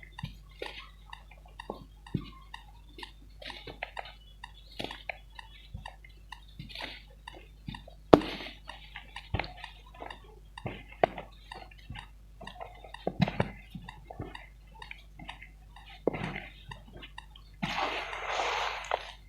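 Lumps of pure cement being crumbled: a string of small crackles and snaps, with one sharp crack about eight seconds in. A denser, continuous gritty crumbling noise starts near the end.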